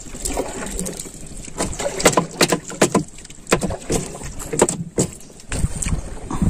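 Irregular sharp knocks and small slaps in a wooden dugout canoe, with water lapping at the hull.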